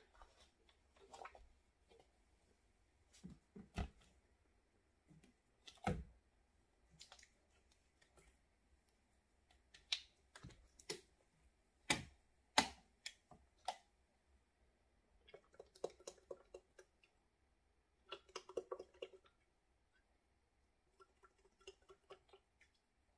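Bottles and caps handled on a tabletop: scattered clicks and knocks, a few sharper ones in the first half. Then oil glugs out of a bottle into a plastic measuring pitcher in three short spells.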